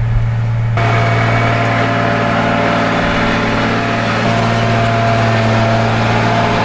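Motor grader's diesel engine running steadily with a deep, even hum. About a second in, a louder layer of mechanical noise joins it.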